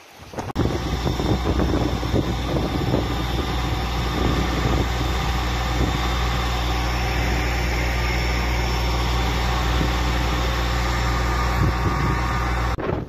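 An engine running steadily: a constant low hum with a haze of noise above it. It starts abruptly about half a second in and cuts off shortly before the end.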